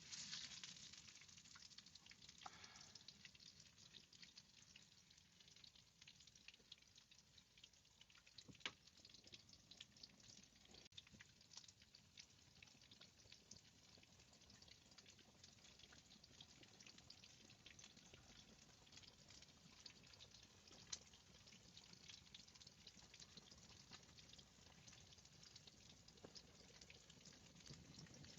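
Faint sizzling and crackling of food frying over a fire, a dense patter of tiny pops with a couple of sharper ticks.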